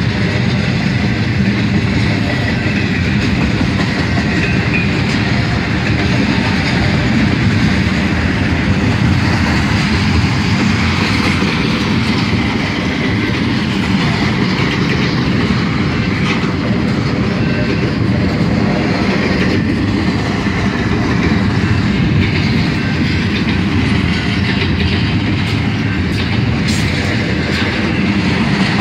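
Intermodal piggyback freight train rolling past, a steady loud rumble and clatter of steel wheels on the rails.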